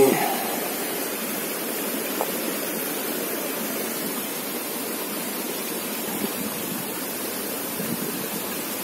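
Steady outdoor rushing noise with no distinct events, and a faint tick about two seconds in.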